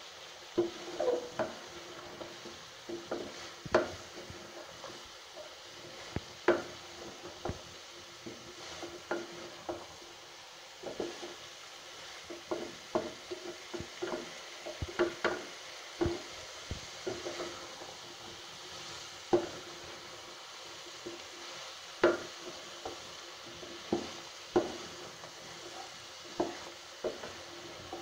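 Wooden spatula stirring cauliflower florets in a metal pot: irregular knocks and scrapes against the pot, several with a brief metallic ring, over a faint sizzle of oil.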